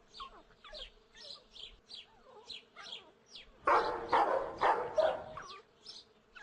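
Dog sound effect: a run of short, faint, high yips, then a string of about five louder barks from about three and a half seconds in.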